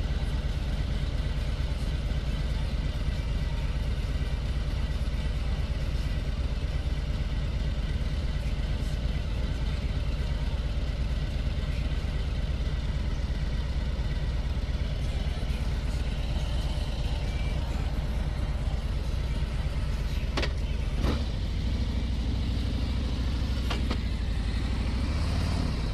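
Harley-Davidson Ultra Limited's Milwaukee-Eight 114 V-twin running steadily under way, its low pulsing exhaust mixed with a steady rush of wind and road noise.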